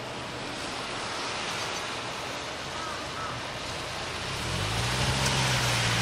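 Steady outdoor hiss of background noise, with a low engine hum, like a motor vehicle's, coming in about two-thirds of the way through, rising a little in pitch and then holding steady as it grows louder.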